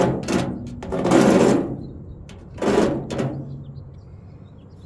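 Hand deburring tool scraping along the cut edge of a sheet-metal patch panel, three rasping strokes, the last about halfway through, taking the burr off the edge.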